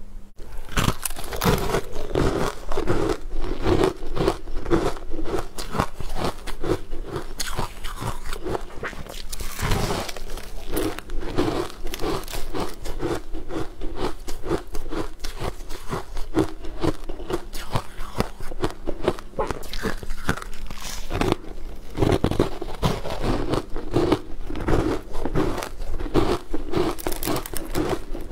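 Close-miked crunching, biting and chewing of crisp sugar-coated pastries, with a dense run of crackles in an even chewing rhythm.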